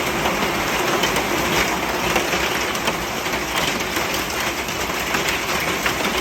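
Heavy rain falling steadily during a thunderstorm: a dense, even hiss with many small scattered taps.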